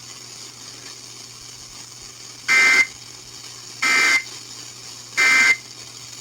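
Emergency Alert System end-of-message signal: three short SAME data bursts (the "NNNN" code), starting about two and a half seconds in and spaced a little over a second apart. They close a relayed severe thunderstorm warning, over a faint steady hum and hiss.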